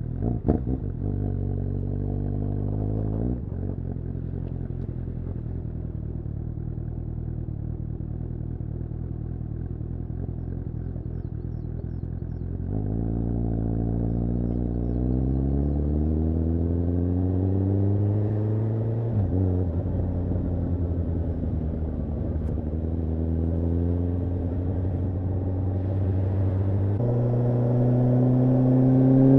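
Suzuki GSR750's inline-four engine running under way. The engine holds steady revs for the first half, then climbs in pitch for several seconds before a gear change drops it sharply about two-thirds through. It runs steady again and rises once more near the end.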